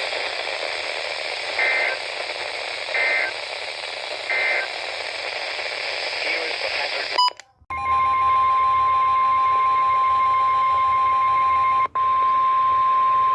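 Emergency Alert System broadcast over radio hiss. Three short bursts of screechy digital data tones (the SAME header) come about a second and a half apart, then a click and a moment of silence. About midway, a loud, steady single-pitch warning alarm tone near 1 kHz begins, typical of NOAA Weather Radio's 1050 Hz alert tone, and is briefly interrupted once near the end.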